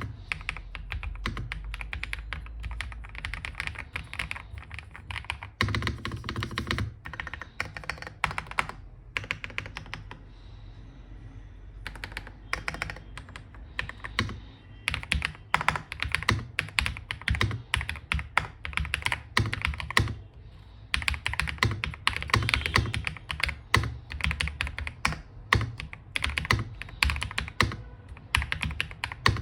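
Typing on an Ajazz AK820 Pro 75% mechanical keyboard with linear Flying Gift switches, a thocky sound profile: rapid runs of keystrokes with two brief lulls, about a third of the way in and again past two thirds.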